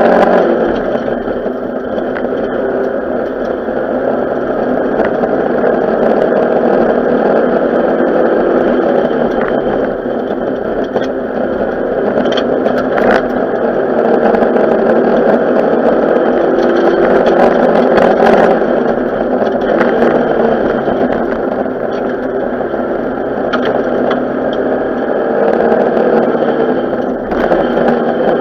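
Renault 5 GT Turbo rally car's turbocharged 1.4-litre four-cylinder engine heard from inside the cabin, pulling hard and easing off in turn as the car is driven flat out along a stage. A few sharp knocks stand out about 12 and 18 seconds in.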